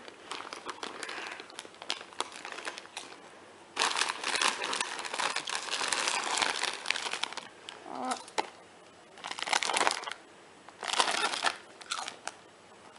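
A crinkly potato-chip bag rustling and crackling in bursts as a hand rummages inside it and a face is pushed into it. The longest, loudest burst starts about four seconds in and lasts a few seconds, with shorter bursts after it.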